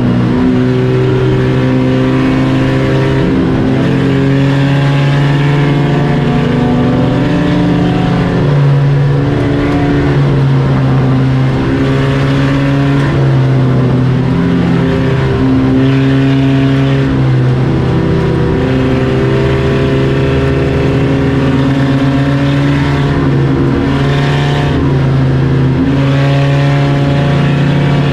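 Several race car engines running hard together in a heat race. Their pitches rise and fall as they accelerate and lift, in a loud, continuous drone.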